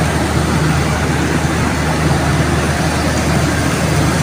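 Train power-van generator engine running steadily: a constant low hum with an even hiss above it.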